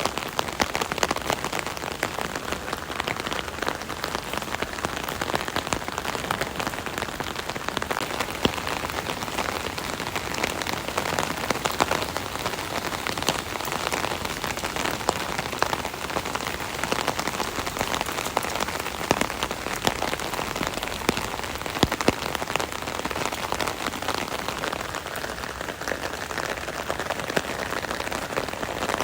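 Steady rain drumming on an umbrella, heard from underneath it: a dense patter of drops with many individual taps on the canopy.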